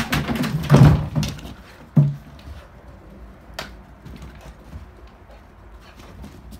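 Hollow knocks and clatter of empty plastic jerrycans bumped by a springer spaniel pushing through them on a search, with one louder thunk about two seconds in, then only light scattered clicks and scuffles.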